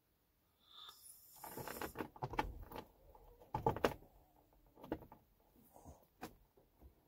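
Rustling and a run of sharp knocks and clicks inside a truck cab, picked up by a phone's microphone: a busy stretch with the loudest knocks about four seconds in, then a few scattered taps.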